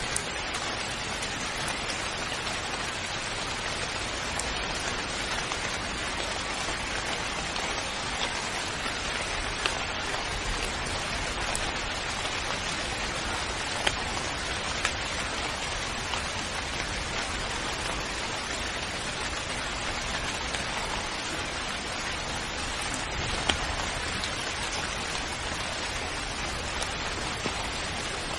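Steady rain falling on a surface, with a few sharper individual drop ticks standing out here and there.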